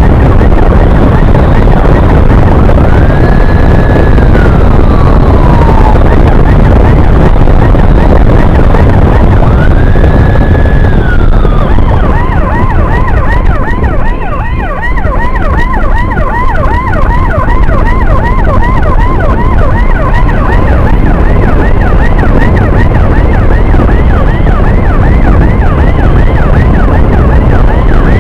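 Electronic emergency siren sounding two slow wails, then switching about twelve seconds in to a fast yelp of about three rising sweeps a second, over heavy wind and engine noise from a moving motorcycle.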